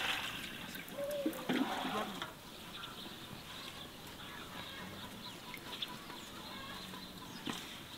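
Chickens clucking faintly, with a louder noisy stretch and a short falling call about one and a half seconds in.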